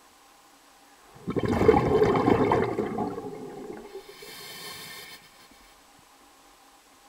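Water rushing loudly for about two seconds, then dying away into a thinner high hiss that cuts off about five seconds in.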